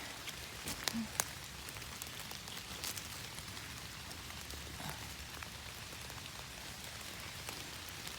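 Steady rain falling, with a few sharper drops ticking close by.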